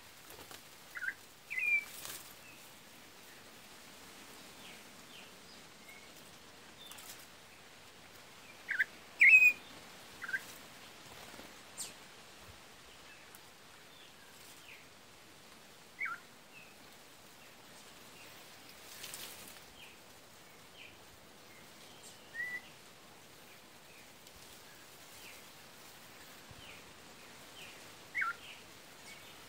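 Short, sharp bird call notes, each a quick downward-sliding chip, scattered a few seconds apart over a quiet background. The loudest pair comes about nine seconds in.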